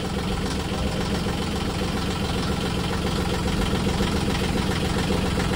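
Yanmar marine diesel idling steadily, heard close up through the open engine compartment, while its raw-water pump draws descaling solution from a bucket through the cooling system.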